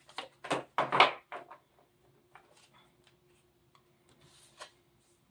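A deck of oracle cards shuffled by hand: a few quick papery swishes and slaps in the first second or so. Then scattered light clicks, and a card is slid across the table and laid down near the end.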